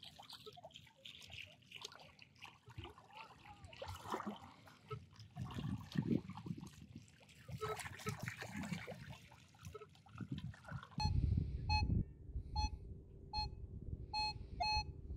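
Metal detector coil sweeping through shallow sea water, splashing and trickling. About eleven seconds in, a low rumble begins and the Minelab Equinox 800 detector gives a string of short beeps, its target tone signalling a buried metal object under the coil.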